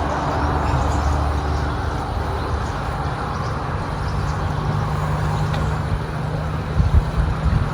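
Road traffic crossing a bridge, a steady rumble of passing vehicles with low engine drone, and a few knocks near the end.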